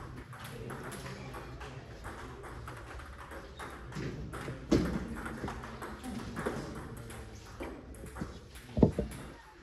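Table tennis ball clicking off paddles and table: scattered, irregular taps, with a sharper one about halfway and the loudest pair of clicks near the end.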